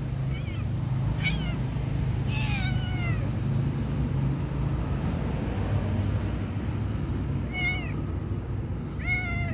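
A tabby cat meowing about five times in short calls that rise and fall in pitch, with a pause of several seconds in the middle, over a steady low rumble.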